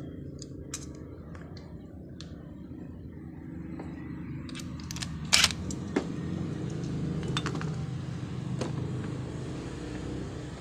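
Scattered clicks and light metallic clatter from handling a steel welding ground clamp and hand tools, with a louder clatter about five seconds in, over a steady low hum.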